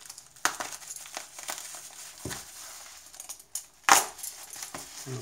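Plastic bubble-wrap packaging crinkling and rustling as it is handled and pulled open, with scattered sharp crackles, the loudest one just before four seconds in.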